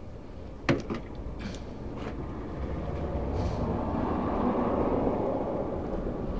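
A passing vehicle: a low rushing noise that swells and then fades over a few seconds. A sharp click comes about a second in, with a few lighter clicks as the multimeter test leads are handled.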